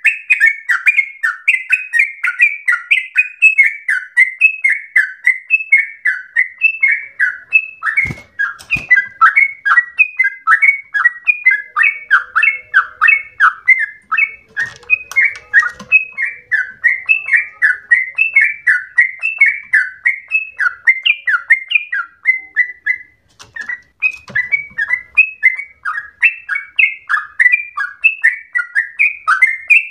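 Yellow-vented bulbul (trucukan) singing a long, unbroken run of quick, bubbly chirping notes, with only a brief break about three-quarters of the way through. Two sharp knocks sound about a quarter of the way in.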